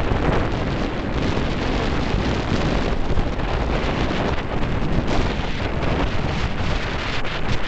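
Strong gusting wind buffeting the microphone: a steady, loud noisy rush with no clear tone.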